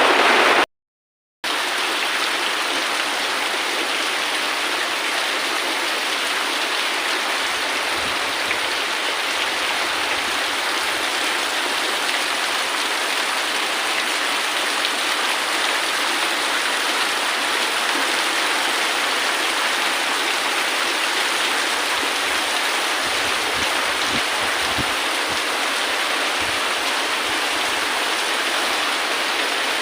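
Steady, even rain. It starts after a brief moment of total silence about a second in.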